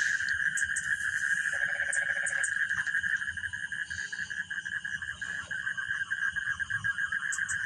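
Night insects trilling steadily in a high, fast-pulsing chorus, with a brief lower buzzy call about one and a half seconds in.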